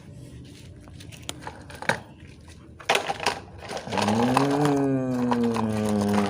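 Scattered light clicks and knocks of plastic toy pieces being handled. From about four seconds in, a steady droning tone starts, bending up slightly and then sinking lower.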